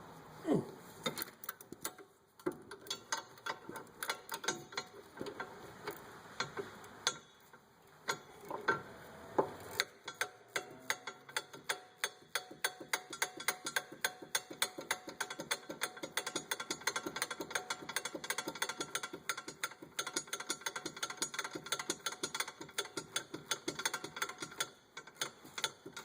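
Ratchet wrench clicking as a bolt is turned: scattered clicks and knocks at first, then about ten seconds in a steady run of about four clicks a second.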